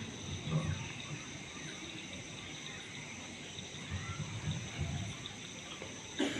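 Crickets trilling steadily in the night air, with faint low rumbles underneath and a single sharp click near the end.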